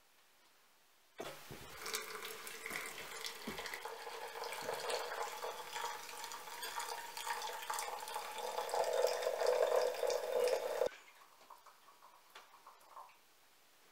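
Water running from a samovar's tap into a glass teapot to brew tea: a steady pouring stream that starts abruptly about a second in, grows louder toward the end, and stops sharply when the tap is shut.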